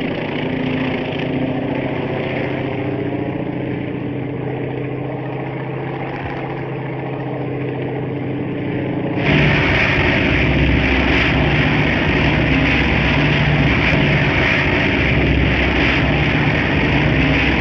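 Piston aircraft engine of a TBF Avenger droning steadily on its landing approach. About nine seconds in it jumps louder and fuller, as heard from inside the cockpit.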